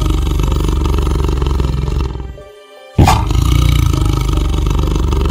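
Tiger roaring: a long, loud roar fades out about two seconds in, and a second roar bursts in about a second later.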